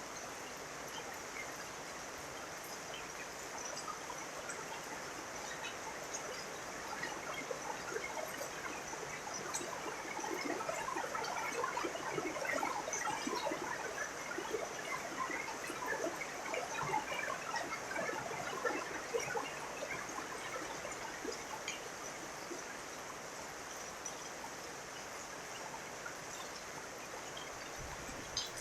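Steady rain hiss. Through the middle stretch a dense scatter of short, bright drips or chirps swells up and then fades back.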